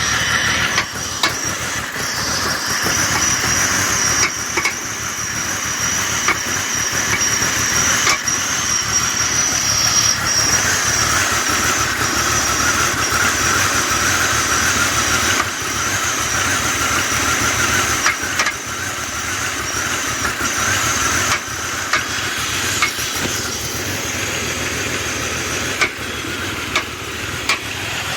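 2000 BMW 528i's 2.8-litre inline-six running cold, with a steady high whine over the engine note and sharp knocks at uneven intervals: the cold-engine knock the owner is asking about.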